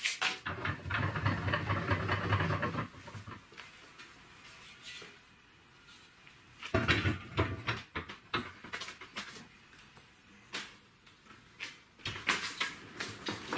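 Steel clattering and knocking as square steel tubing is handled and set into the jaws of a homemade bench vise: a dense run of clatter for about three seconds, another about seven seconds in, then scattered sharp knocks.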